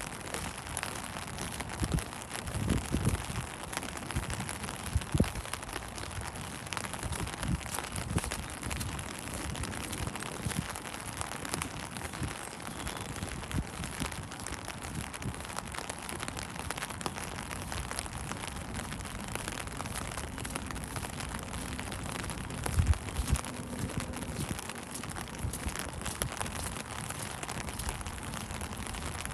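Steady rain falling, an even hiss dotted with countless separate drop ticks. A few dull low thumps stand out about 3, 5 and 23 seconds in.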